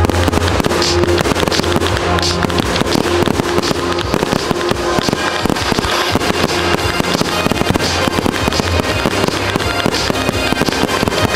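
Fireworks bursting and crackling in quick succession, many bangs a second, over music with a steady low bass line.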